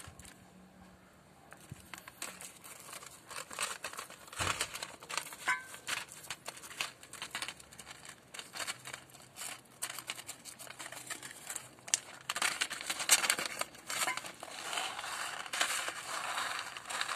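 Plastic okra seed packet crinkling and crackling as it is handled and opened by hand, busier and louder in the last few seconds.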